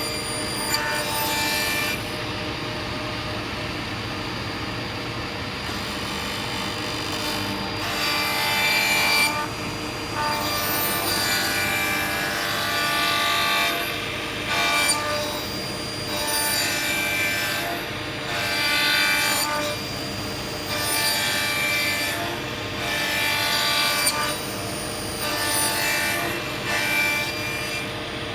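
Sliding table saw's circular blade running steadily, cutting into wood again and again, the cutting sound swelling about every two seconds as a round part is trimmed.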